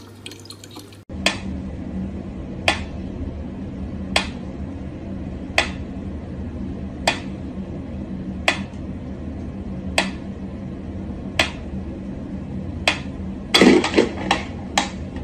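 Mechanical pendulum metronome ticking slowly, one sharp click about every second and a half over a steady low hum. Near the end a short scuffling clatter breaks in among the ticks.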